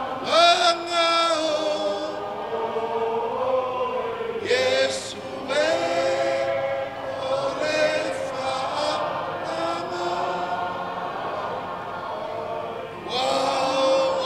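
A man singing a Samoan song through a microphone and hall PA in long held notes, with other voices singing along.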